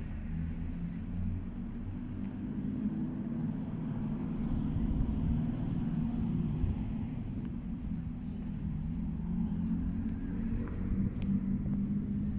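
Low, steady outdoor rumble of street ambience with a faint engine-like hum and no distinct events.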